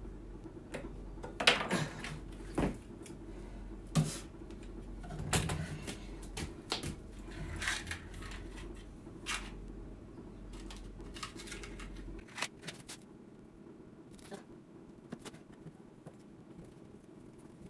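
Irregular clicks, knocks and rattles of a wire-mesh cage door being handled and fitted by hand into a wooden frame, the sharpest knocks about one and a half and four seconds in. A low background hum cuts off about twelve seconds in.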